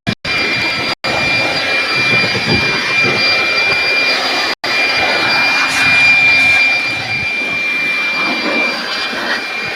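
Steady rushing machine noise with a high, steady whine over it, broken by a couple of brief dropouts.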